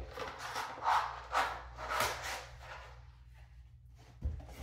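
Rustling and handling noises as hair-tool attachments are put back into their box, several short scrapes and rubs, then a dull thump near the end.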